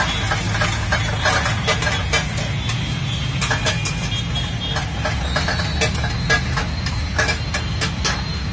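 Spatula clacking and scraping against a frying pan at irregular intervals as an egg dish is stirred, over a steady low rumble.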